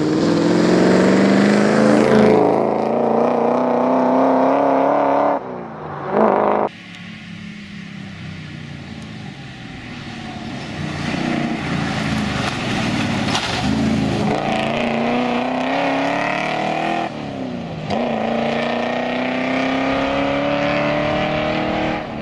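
Triumph TR7 V8 rally car's Rover V8 engine under hard acceleration, the pitch climbing through the gears and dropping sharply at each upshift, several times over.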